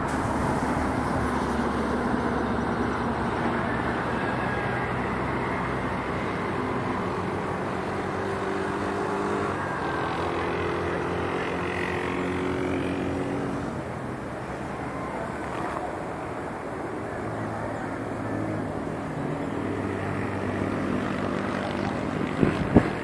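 City traffic: a steady din of vehicle engines running and passing, with a few sharp knocks near the end.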